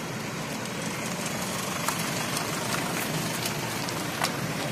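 Steady rumble of vehicle engines idling on the highway, with a couple of short sharp clicks about two seconds in and near the end.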